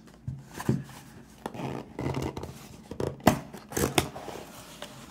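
A cardboard mailer box being handled and opened by hand: irregular scratching and scraping of cardboard with a few sharp clicks.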